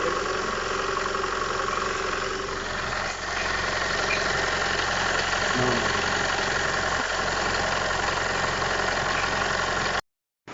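Fiat 500 engine running steadily at idle with its newly fitted alternator; the sound cuts off suddenly near the end.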